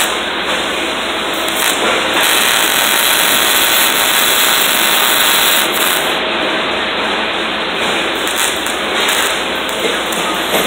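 Electric arc welding on a steel enclosure: the arc's steady hiss, louder through the middle of the stretch.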